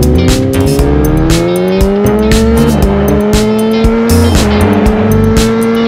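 Background music with a steady drum beat, over a tone that climbs in pitch for the first few seconds, then steps and holds level.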